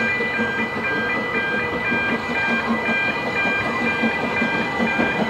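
Pair of Ffestiniog Railway Double Fairlie steam locomotives moving slowly through the street with a train, a low regular beat under the sound. Over it a level-crossing warning alarm sounds without a break, two high tones alternating about twice a second.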